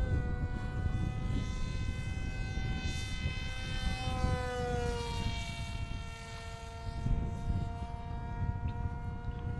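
Electric motor and propeller of a cardboard RC jet model whining at a steady pitch in flight, dropping slightly in pitch about four seconds in, with wind rumbling on the microphone.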